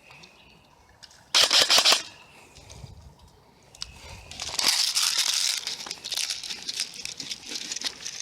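A short, rapid burst of airsoft gunfire, loud, about a second and a half in. From about four and a half seconds in, several seconds of crackling, rustling noise follow.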